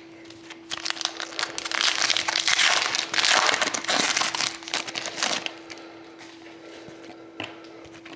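Foil wrapper of a Panini Select hockey card pack being torn open and crinkled by hand. A dense crackling starts about a second in, lasts around four seconds, then dies down.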